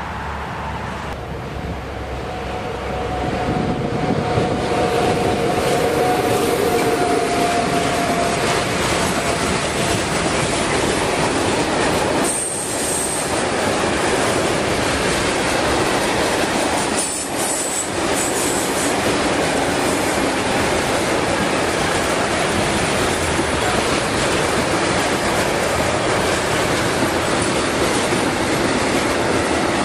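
Freight train rolling past close by: a steady rumble and rattle of wagon wheels on the rails, with a held squeal in the first seconds and short high wheel squeals around the middle.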